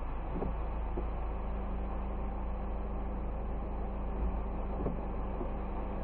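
Steady low rumble and rain noise heard from inside a car idling at a level crossing, with a windscreen wiper sweeping across the glass near the start.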